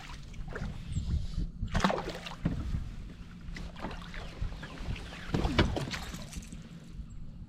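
Water splashing and slapping against a fishing kayak's hull, louder around two seconds and five and a half seconds in, over a low wind rumble on the microphone and a steady low hum.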